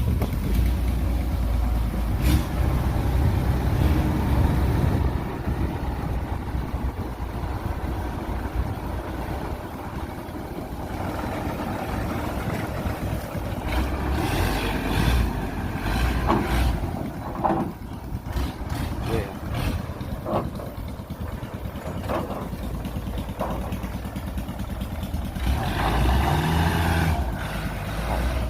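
Kubota DC-105X combine harvester's diesel engine running as it manoeuvres, heavy and low at first, with scattered knocks and clanks in the middle part and the engine swelling again near the end.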